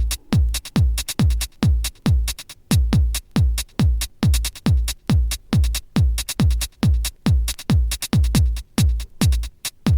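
Electronic dance music with a steady kick-drum beat, about two kicks a second, and hi-hats between them.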